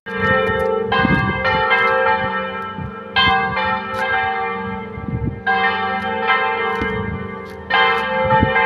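The two romana church bells chimed in a repique, struck in a quick, uneven run of strokes, each ringing on under the next. The bells hang still and are struck rather than swung, because the grease on their iron yokes has dried.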